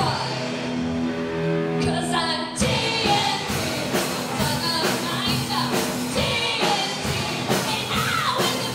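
A rock band playing live: electric guitars, bass guitar and drum kit with a woman singing. A held chord rings for the first couple of seconds, then about two and a half seconds in the drums come back in on a steady beat under the vocal line.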